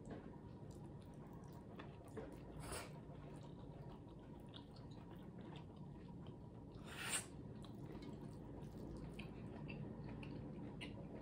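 Quiet eating sounds of rice and curry eaten by hand: soft chewing and small wet mouth and finger sounds, with two brief, louder hissy sounds about three and seven seconds in.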